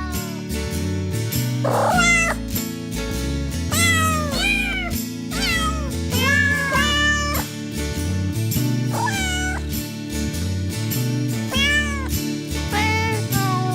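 Domestic cat meowing again and again, about a dozen short rising-and-falling meows, over background music.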